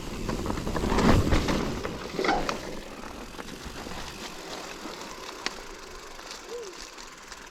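Mountain bike riding over muddy dirt trail: tyre noise, bumps and drivetrain rattle, loudest in the first couple of seconds. Then quieter rolling with a few scattered clicks as the bike slows.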